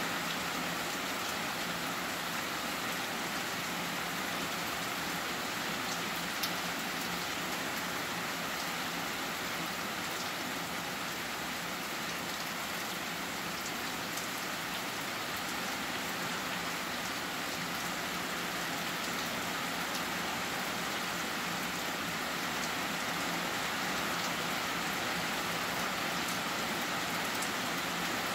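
Heavy rain falling steadily and evenly, with one sharp tick about six seconds in.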